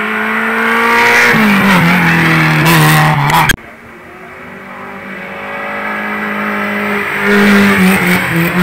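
Two hillclimb race cars running at full throttle, one after the other. The first engine rises in pitch as it approaches, drops in pitch about a second in as it changes gear, and stays loud until it cuts off suddenly. The second, a blue Renault Clio, grows steadily louder as it climbs toward the bend and is loudest as it passes close, with its engine pitch stepping through gear changes near the end.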